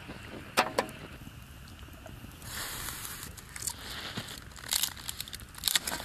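Wood campfire crackling with scattered sharp pops, along with the scrape and knock of a split wooden plank being handled over the fire.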